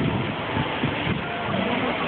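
Steady outdoor din of indistinct voices over a low rumble, with faint snatches of pitched sound.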